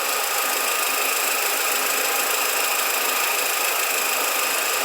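VW SpaceFox 1.6 engine running at idle with a steady, high-pitched metallic chirp like a cricket from its accessory belt drive, typical of a worn pulley, alternator or power-steering pump bearing.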